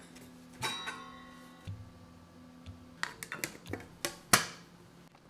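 Light clicks and knocks of a table saw's throat insert plate being handled and set into the saw's table. There is a click with a short ringing note about a second in, and a cluster of sharper clicks from about three seconds in.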